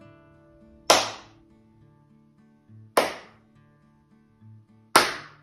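Three sharp hand claps about two seconds apart, each one the cue to swap fingers in a slow hand-coordination exercise, over soft background music with slow low notes.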